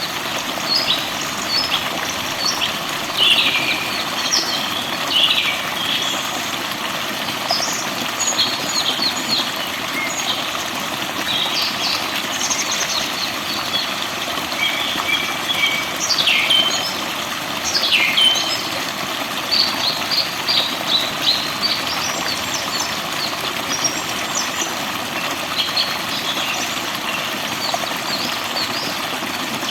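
Several forest birds chirping and singing, in short trills and calls, with two sharp falling whistles near the middle, over a steady rush of running water.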